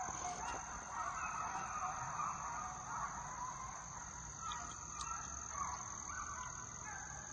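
Hunting hounds baying in repeated calls, over a steady high-pitched drone of insects.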